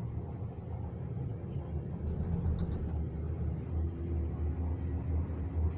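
Steady low rumble of a moving cable-car gondola cabin in motion, heard from inside.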